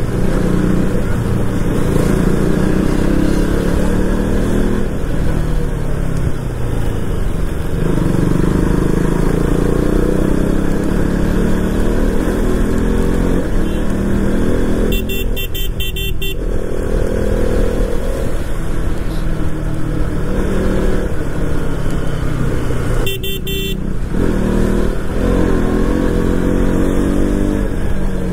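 Motorcycle engine running on the move, its pitch rising and falling again and again as the throttle opens and closes, with two brief drops in sound about halfway through and again near the end.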